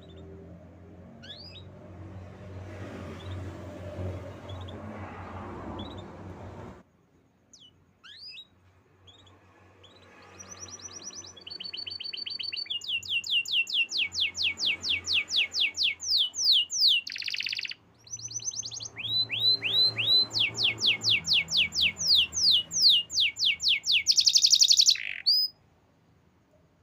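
Canary singing: a few scattered chirps over a low rumble at first, then from about ten seconds in a long song of rapid, evenly repeated trills, about six notes a second, that changes pattern several times and cuts off suddenly near the end.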